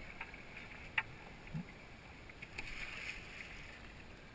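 Water moving around an inflatable river raft on a calm stretch, with one sharp knock about a second in.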